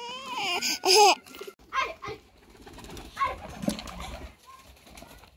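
A young child's wavering, sing-song vocalizing for about the first second, then quieter scattered rustling and handling sounds.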